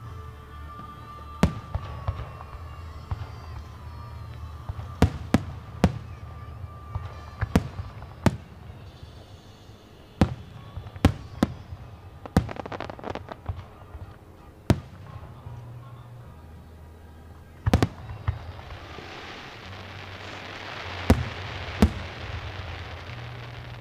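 Aerial fireworks shells bursting with sharp bangs at irregular intervals, some in quick pairs, over music playing in the background. Near the end a broad hiss builds up between the bangs.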